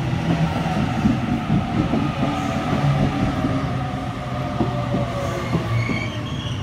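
Sydney Trains Waratah (A set) double-deck electric train moving along the platform. A steady low rumble carries a hum and a whine whose pitch sinks slightly over the first few seconds.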